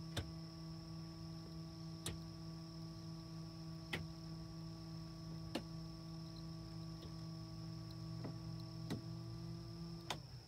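A steady electrical hum with a sharp click about every two seconds; the hum cuts off shortly before the end.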